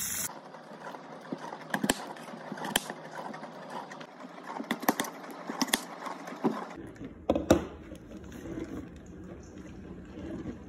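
A knife cutting a potato on a glass cutting board, with irregular sharp clicks and taps as the blade strikes the glass. Running tap water cuts off right at the start.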